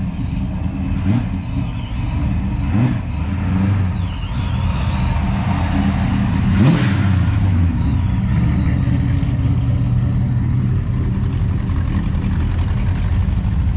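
A car engine running at idle with a steady low rumble. It is briefly revved up and back down about a second in, again near three seconds, and most strongly near seven seconds.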